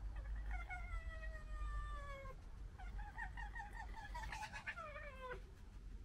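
Red fox calling: a long high wailing call that falls in pitch, then a quick stuttering run of calls that also slides down, the kind of vocalising foxes make when squabbling.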